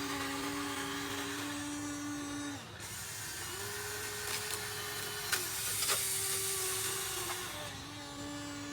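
Small electric motors and gearboxes of a Huina 1593 RC excavator whining as it works, the pitch shifting as one motor stops and another starts. There are a few light clicks about four to six seconds in.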